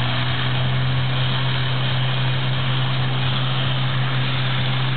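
Portable fire pump's engine running steadily at high revs, pushing water through the hoses, under a steady hiss of water jets.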